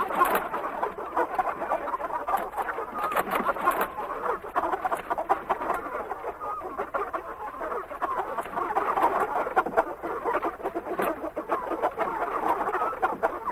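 A flock of chickens clucking without a break, many short overlapping calls at once.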